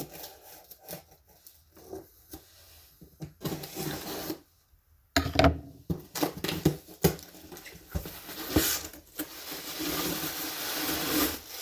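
A subscription box being opened and unpacked by hand: scattered rustling, scrapes and knocks, with a short pause about four and a half seconds in, then a denser run of packing-paper rustling and crinkling with sharp knocks.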